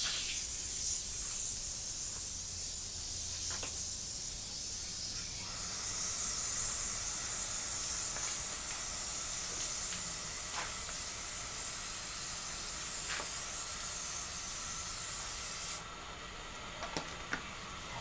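Garden hose spraying water onto a bicycle frame and wheels: a steady hiss that starts suddenly and cuts off near the end, with a few light taps.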